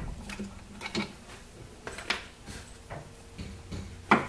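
Small clicks and knocks of a Phillips screwdriver turning a screw out of a wooden housing, then the tool and screw being put down, with a sharp knock about four seconds in.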